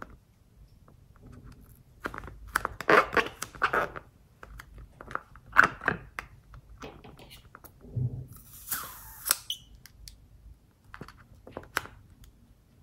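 Hands handling and squeezing a rubber balloon filled with liquid slime ingredient, the latex rubbing and crackling in irregular bursts. About nine seconds in there is a short hiss as the contents squirt out of the balloon's neck.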